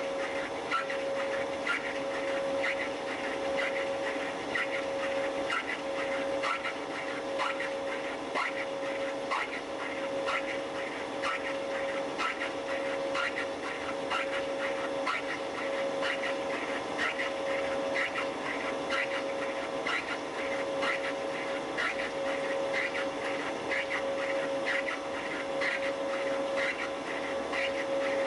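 Machine running steadily while a custom gear hob cuts the teeth of a worm gear wheel by free hobbing: a steady hum-like tone with a rapid, regular ticking of the cut.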